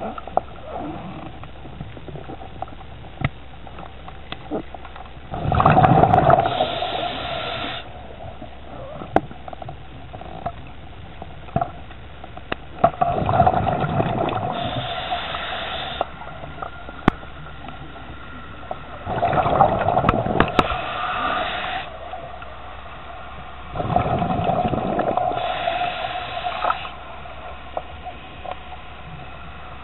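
A scuba diver breathing through a regulator underwater: four breaths about six seconds apart, each a rush of bubbling lasting two to three seconds. Small clicks and taps come in between.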